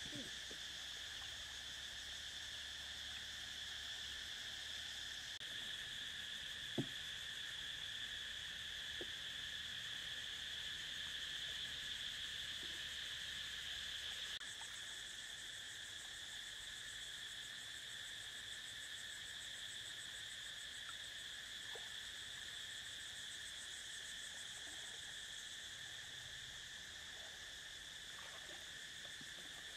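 Steady, high-pitched insect chorus, a continuous shrill drone in several pitch bands. A single sharp click about seven seconds in.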